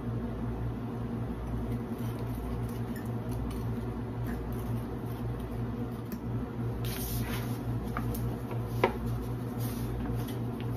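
Steady low hum throughout, with light kitchen handling noises over it: a fork in a glass bowl of batter, a paper bag of flour rustling about seven seconds in, and one sharp knock just before nine seconds as a plate is set down.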